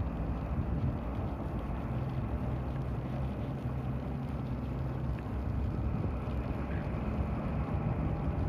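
A steady low rumble with a faint hum running through it.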